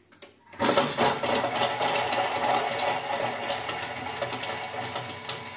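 Thermomix TM5 chopping an onion at speed 5. The motor whirs and the blade flings the onion pieces against the mixing bowl in a dense clatter, starting about half a second in.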